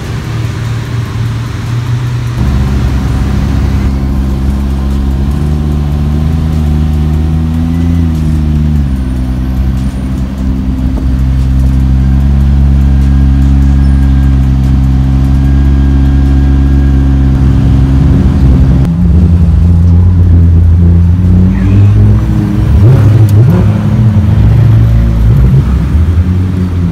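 Supercar engine idling with a steady, even drone, its pitch lifting briefly about seven to nine seconds in. Past the two-thirds mark it turns louder and rougher, with quick revs as a McLaren Senna pulls away.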